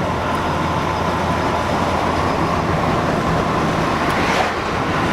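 Steady road and engine noise of a car, heard from inside the cabin while driving.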